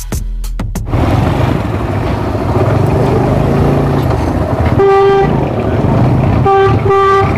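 Background music cuts off about a second in. Then a Suzuki GS150 motorcycle runs along the road with engine and road noise. A horn honks once for about half a second, then twice more in quick short toots near the end.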